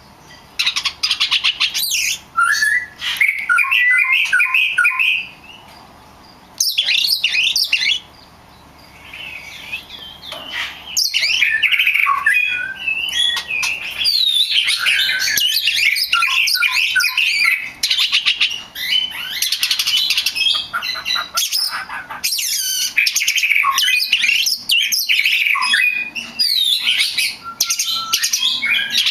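Several small birds chirping and calling at once, rapid overlapping chirps and trills, with a couple of brief lulls in the first ten seconds.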